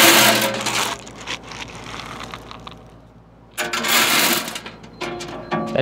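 Wood pellets poured from a plastic scoop into the metal hopper of a Pit Boss pellet grill, rattling through its grid screen. There are two pours, one at the start and another about three and a half seconds in, each about a second long, with a quieter rattle between them.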